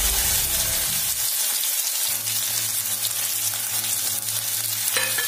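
Chopped okra sizzling in hot oil in a kadhai, on a tempering of mustard seeds, cumin and curry leaves: a steady hiss with scattered crackles, just after the wet okra has gone into the oil.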